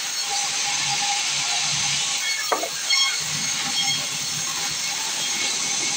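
Sawmill cutting machinery running with a steady high hiss and a faint steady tone. There is a sharp knock about two and a half seconds in and another just after.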